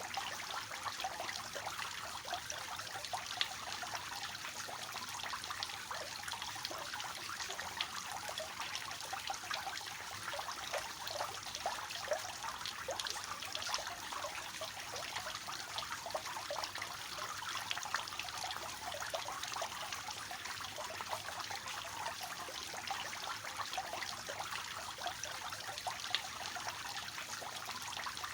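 Water from a three-tiered cascade fountain spilling steadily into its basins, an even trickling and splashing.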